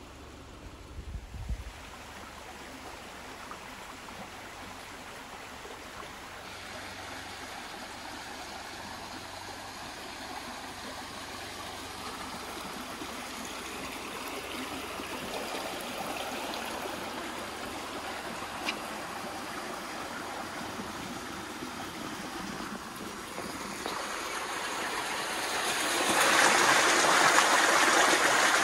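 Road and tyre noise of a car being driven: a steady rush that slowly grows louder and swells to its loudest near the end, with a few low thumps about a second in.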